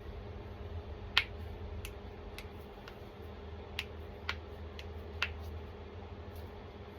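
Joints cracking: a string of sharp pops, about eight or nine, the loudest about a second in, over a steady low hum.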